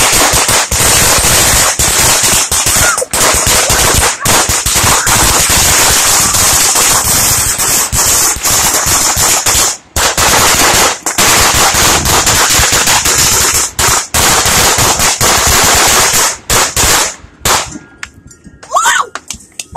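Firecrackers going off in a fast, unbroken crackle of loud pops, thinning to a few scattered last pops near the end.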